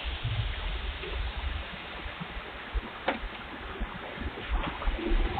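Steady hiss and low rumble of outdoor background noise through a Ring doorbell camera's microphone, with a few faint clicks in the second half.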